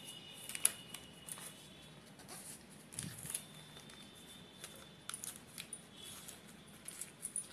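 Faint rustling and light crinkling of thin paper being wrapped by hand around a rolled flatbread, with scattered small clicks.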